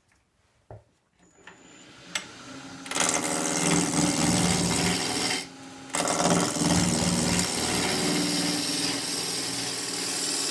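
A wood lathe is switched on and spins up. Then a 1-inch deep-fluted spindle-roughing gouge cuts into the spinning square radiata pine blank, making a loud, fast, rhythmic rasping as the edge peels off the corners. The cut breaks off briefly about five and a half seconds in.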